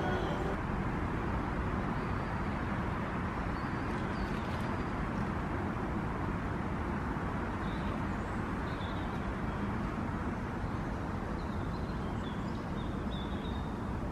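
Steady outdoor background rumble at a lakeside, with a few faint high chirps about four seconds in and again from about eight to thirteen seconds.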